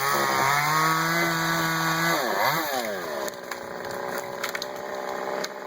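Chainsaw running at high revs with a steady pitch, dropping off sharply about two seconds in and revving straight back up, then running on more quietly.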